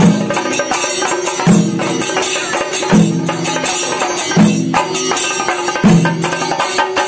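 Chenda melam, Kerala temple drumming: several chenda drums beaten with sticks in a dense, continuous pattern, with jangling metal and a deep stroke returning about every second and a half.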